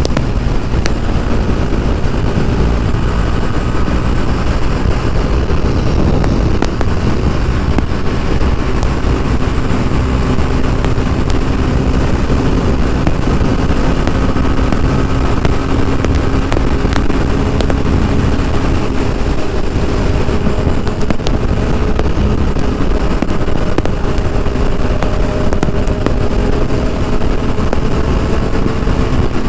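Kawasaki inline-four naked motorcycle cruising at highway speed. Heavy wind rush buffets the rider's microphone, over a steady engine drone whose pitch climbs slowly in the last few seconds.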